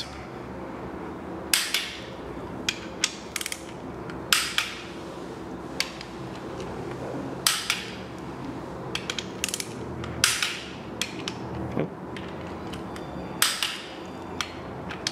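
Ratcheting torque wrench tightening water pump bolts on the second torque pass, giving scattered sharp clicks in short runs with pauses between them.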